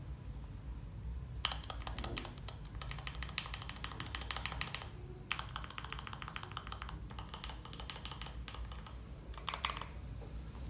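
Typing on a mechanical keyboard fitted with the reviewed switches: two long runs of rapid keystrokes with a short pause between them, then a brief flurry near the end.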